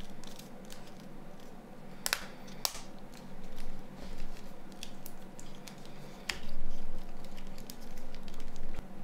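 Plastic and metal parts of a Nokia N93 phone being handled and pressed together: scattered light clicks and taps, the sharpest two about two seconds in. A dull bump follows a sharp click a little after six seconds.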